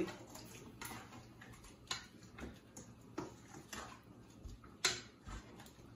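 Scattered light clicks and taps of kitchen utensils and spice containers against a bowl while food is being seasoned, with one sharper knock about five seconds in.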